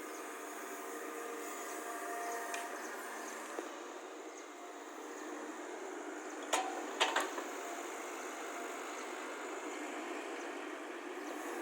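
Excavator running steadily, with three short sharp knocks a little past the middle.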